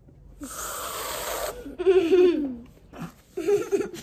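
Aerosol can of whipped cream spraying into an open mouth: a steady hiss lasting about a second. Laughter follows, with more near the end.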